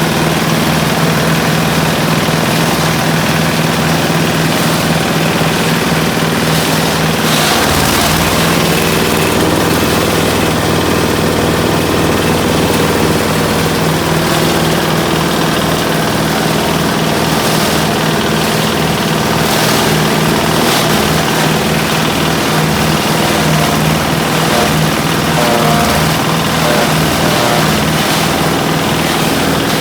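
Small diesel engine on a grass chopper and crusher machine running steadily and loudly, with an even low, rapid pulse.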